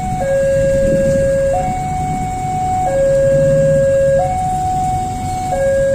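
Two-tone hi-lo siren, switching evenly between a higher and a lower pitch about every second and a half, over a low rumble.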